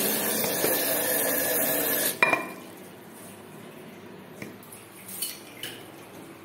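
Water running steadily, cut off about two seconds in by a sharp, ringing clink of a dish, then a few light clicks and taps.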